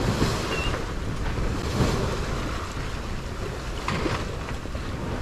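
Wind buffeting the microphone over the rush of water along the hull of a sailboat heeled hard and sailing fast.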